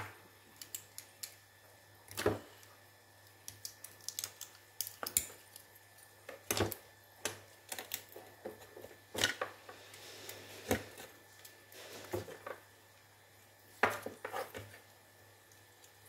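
Small tools and microphone parts being handled and set down on a workbench: scattered clicks, taps and light metallic clatter, with a brief scraping sound about ten seconds in.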